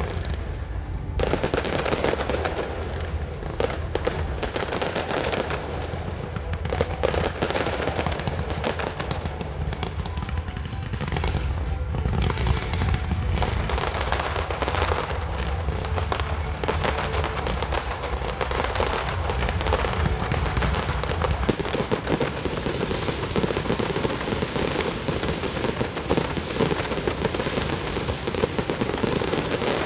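Fireworks display going off without a break: dense, rapid crackling and popping from ground fountains and bursting shells.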